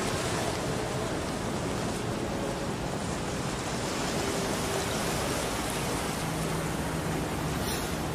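Steady rushing noise of waves along a sea wall, even throughout with no distinct events.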